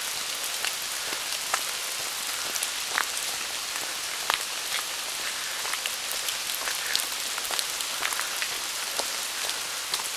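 Rain falling: a steady hiss with many separate drops ticking at irregular moments.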